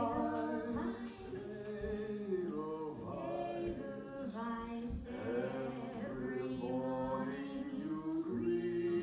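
Film musical soundtrack playing from a television: a woman and a group of children singing together, with some sung runs that climb step by step up the scale.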